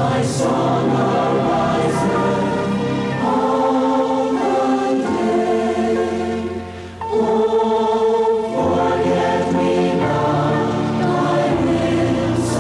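A congregation or choir singing a slow hymn in long held notes, with occasional sung 's' sounds.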